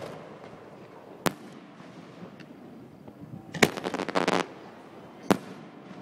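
Fireworks going off: a single sharp bang about a second in, then a bang followed by a rapid run of crackling pops for nearly a second midway, and another sharp bang near the end.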